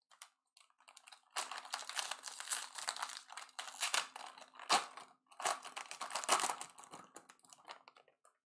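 Foil wrapper of a Bowman Draft baseball card pack being torn open and crinkled by hand. The dense crinkling and tearing starts about a second and a half in, breaks briefly around five seconds, and dies away near the end.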